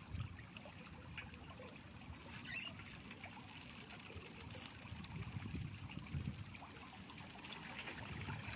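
Water trickling and pouring off a bamboo-framed square lift net as it is hauled up out of the water, draining through the mesh. It grows louder near the end as the net's bag breaks the surface and water splashes inside it.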